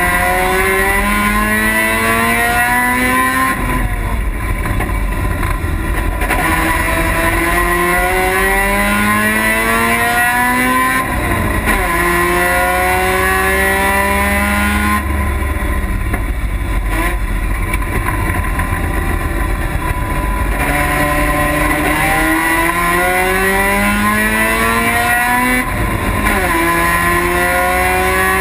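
Race car engine heard inside the stripped cabin, accelerating hard. Its pitch climbs and drops sharply at each upshift, three times. In the middle it eases off for a few seconds with the pitch sinking, then pulls up through the gears again.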